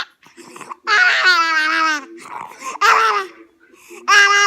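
A baby's high-pitched vocal noises: three long, drawn-out, wavering squeals, with quieter breathy sounds between them.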